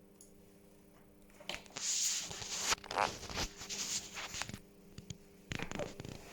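Rustling and scraping noises in a dense run of quick strokes lasting about three seconds, starting a second and a half in, then a shorter run near the end.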